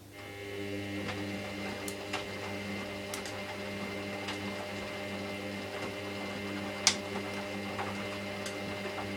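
Hoover washing machine's drum motor starting up just after the start and turning the drum on a 30 °C main wash: a steady motor whine with scattered light clicks and one sharp knock about seven seconds in.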